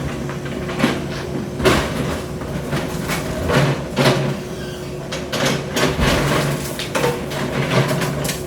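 Building demolition: a heavy machine's engine running steadily under repeated knocks and crashes of breaking debris, about a dozen strikes spaced unevenly.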